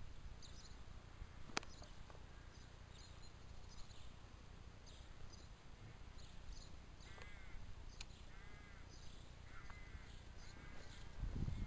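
Faint outdoor ambience with birds calling over a steady low rumble. A small bird's short high chirps repeat through the first part, then from about seven seconds a run of lower, arched calls takes over, likely from a crow. Heavier low sounds, probably footsteps, start near the end.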